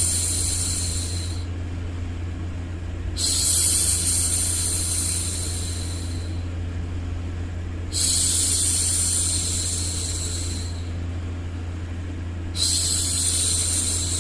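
A woman's voice repeatedly shushing "shhh" to hush a baby. Each long shush lasts about three seconds and comes back roughly every four and a half seconds, over a steady low hum.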